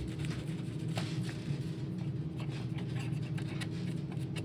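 Light scratchy rubbing and scattered small clicks of hands wiping and handling the plastic parts of a Roomba robot vacuum during cleaning, over a steady low hum.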